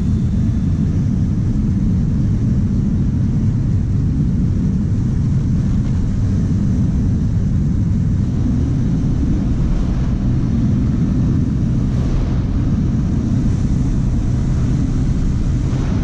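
Honda Dash 125 FI motorcycle riding steadily at road speed, heard from the rider's camera as an even low rumble of engine and wind on the microphone.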